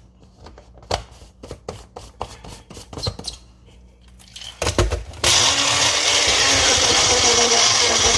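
Bullet-style personal blender: a few clicks and knocks as the cup is handled and seated, then about five seconds in the motor starts and runs steadily and loudly, blending ice and frozen fruit.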